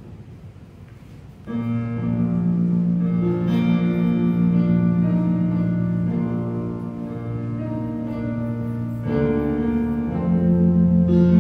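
Keyboard playing sustained chords of a hymn, beginning suddenly about a second and a half in after a quiet stretch, with a change of chord near the end.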